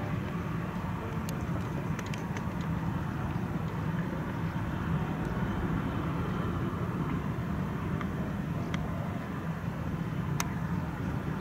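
Airbus A320-family airliner's jet engines at taxi idle, heard from a distance as a steady low rumble, with a few faint ticks.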